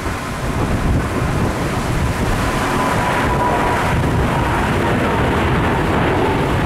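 Boeing 777 airliner's twin turbofan engines at takeoff power as it climbs out, a steady loud rumble with a faint whine that slowly falls in pitch as the aircraft passes.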